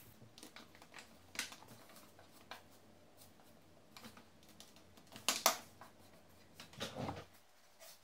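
Light clicks and taps of a soldering iron and hand tools being handled at a workbench, with a louder clatter a little past the middle and a dull knock about seven seconds in.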